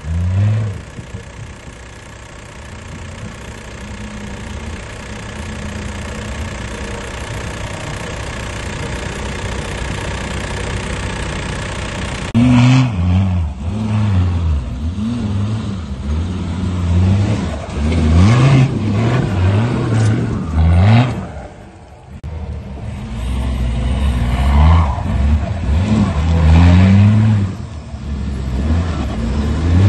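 Engine of a modified GAZ-69 off-road trial car working under load on steep dirt climbs. For the first dozen seconds it is heard steady and more distant, slowly getting louder. Then it is close and loud, revving up and down again and again.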